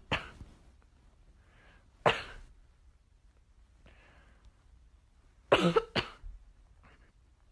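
A few short, sharp coughs: one at the start, one about two seconds in, and two close together about five and a half seconds in, with fainter ones between.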